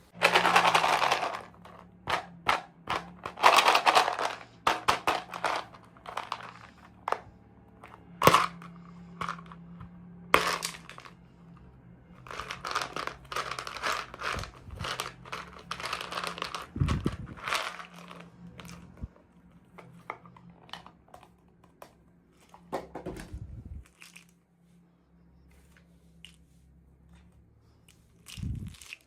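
Packaging being handled and opened: irregular crinkling, crumpling and tearing with many sharp clicks, louder in the first half, and a couple of soft thumps later on.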